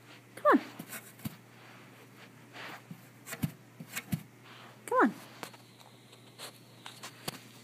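A dog whining twice in short cries that slide down in pitch, one about half a second in and one about five seconds in, with a few light knocks and taps in between as it works at the hidden treats.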